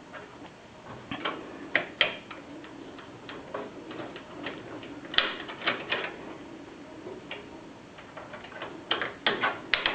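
Irregular clicks and light knocks of metal and plastic as a 5¼-inch DVD drive is worked into a computer case's drive bay. They come in small clusters: about a second in, around five seconds, and again near the end.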